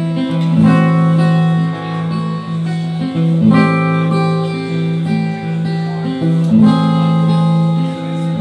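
Acoustic string band playing live: acoustic guitar with banjo and fiddle in an instrumental intro, chords changing every second or so over a held low note.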